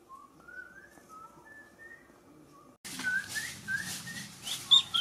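Faint whistling, a few notes sliding up and down. About three seconds in, the sound changes abruptly to a steady hiss with short, repeated upward bird chirps.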